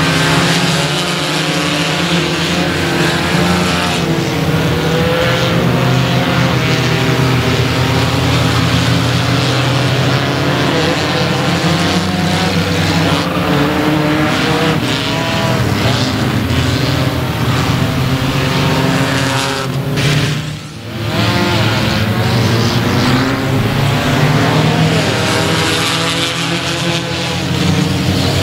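Several front-wheel-drive ecostock race cars' engines running together as the field circles a dirt oval, many engine notes layered over steady tyre and track noise. The sound dips briefly about twenty seconds in.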